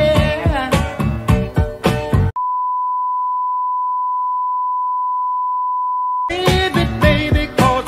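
Music with a singing voice cuts off abruptly about two seconds in and is replaced by a steady single-pitch test-tone beep, the broadcast test tone played with TV colour bars to signal an interrupted programme. The tone holds for about four seconds, then the music comes back in.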